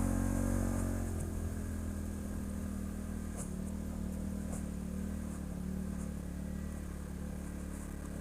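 ATV engine running on the trail, its revs easing down over the first second or so, then holding steady, with a few faint ticks or rattles.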